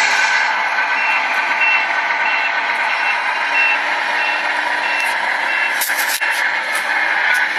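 Tamiya Scania radio-controlled truck's sound unit playing a reversing beeper: a short high beep repeating about every two-thirds of a second over a steady noise. There are a few sharp clicks about six seconds in.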